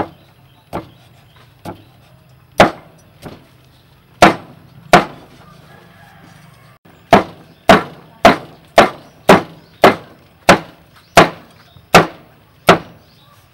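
Meat cleaver chopping char siu pork on a thick round wooden chopping block: a few scattered chops, then, about halfway through, a steady run of about ten chops at roughly two a second.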